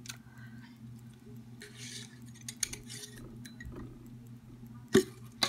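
Glass jar of folded paper slips being handled: soft rustling and small clicks as a hand rummages among the slips, then two sharp clinks of the glass near the end, over a steady low hum.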